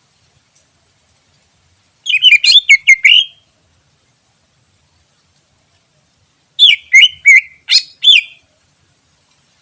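A green leafbird (cucak ijo) sings two short bursts of rapid, sweeping whistled notes, each about a second and a half long, with a pause of about three seconds between them.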